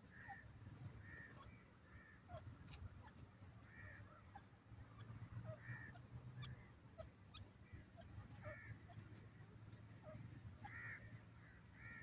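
Grey francolin giving faint, short, soft calls, repeated every second or so, over a low background hum.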